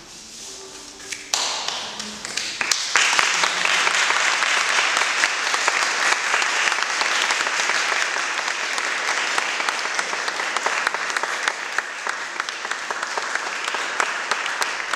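Audience applauding. The clapping starts scattered about a second in, swells to full applause a couple of seconds later, and then holds steady, easing off only slightly.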